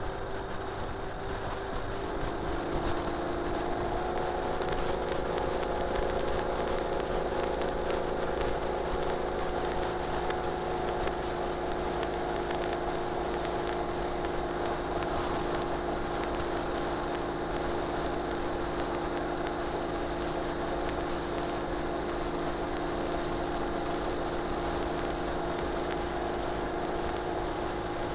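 Ural Retro sidecar motorcycle's boxer-twin engine working hard at about 60 mph with a passenger in the sidecar, with wind and road noise. It picks up over the first few seconds, then holds steady under heavy load.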